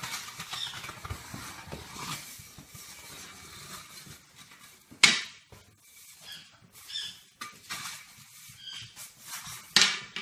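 A raccoon handling a broom on a wooden floor: light scrapes and taps, with short high squeaks. Two sharp knocks of the broom come about five seconds apart, one halfway through and one near the end.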